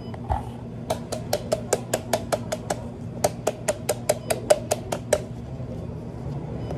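A hand smacking a plastic bottle of red syrup about twenty times in quick succession, roughly five slaps a second, starting about a second in and stopping near the end, to knock the thick syrup down toward the spout. A steady low hum runs underneath.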